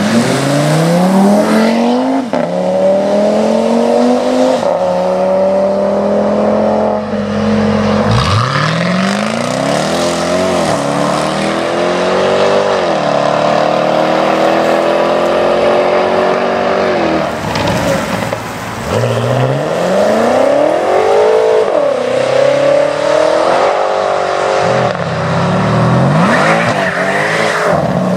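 Several sports cars accelerating hard one after another on a wet road, each engine climbing in pitch and dropping back at every upshift, over the hiss of tyres through water.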